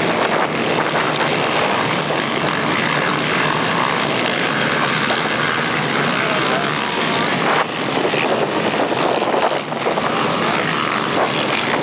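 Engines of a pack of racing quad bikes revving together as they climb the sand dunes: a dense, continuous mix of engine notes rising and falling with the throttle.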